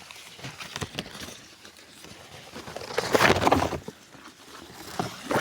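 Rustling and scraping of leaves and twigs being handled, with scattered small clicks and a louder burst of rustling about three seconds in.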